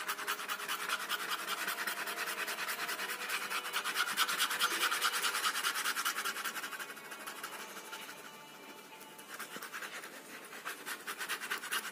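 Ballpoint pen scratching in fast back-and-forth shading strokes, several a second. The strokes die down for a moment a little past the middle, then start again near the end.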